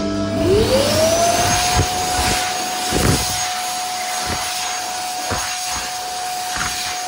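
PHS Airstream Vitesse hand dryer starting up. Its motor whine rises over about a second, then it runs steadily with a rush of air.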